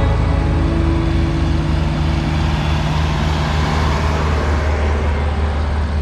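Farm tractor engines running as tractors drive past on a paved road, one close by and another approaching. The nearer engine's steady note drops away about four seconds in.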